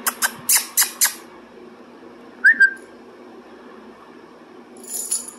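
A person making a quick run of kissing noises to call a puppy, about five in the first second. A short high squeak comes about two and a half seconds in, and a brief hiss near the end.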